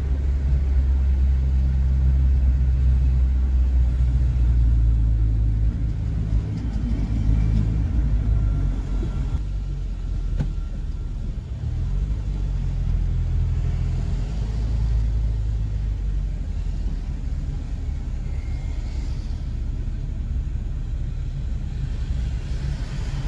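Car engine and tyre noise heard from inside a moving car: a steady low rumble, with the engine's hum most distinct in the first few seconds.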